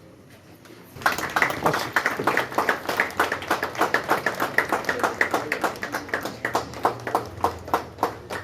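An audience clapping, starting suddenly about a second in and thinning out near the end.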